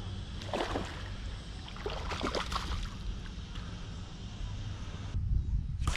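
Wind rumbling on the microphone, with two splashes, about half a second and two seconds in, as a hooked largemouth bass thrashes at the surface beside the boat.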